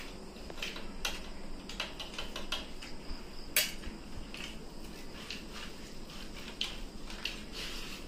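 Eating rice by hand from metal plates and a large metal bowl: irregular light clicks and clinks as fingers and utensils knock against the metal, one sharper clink about three and a half seconds in.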